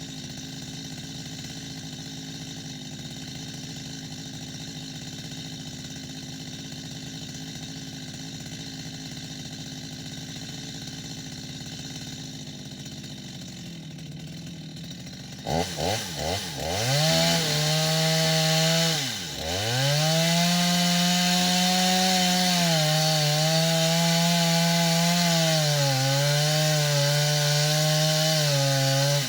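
Two-stroke chainsaw idling steadily, then throttled up about halfway through to a loud high-revving whine. The revs drop sharply once and climb again, then hold high with small dips in pitch as the chain cuts into wood.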